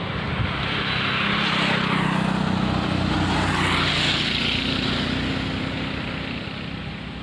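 A motor vehicle engine running as it passes, with a low steady drone and tyre hiss that swell over the first few seconds and then fade away.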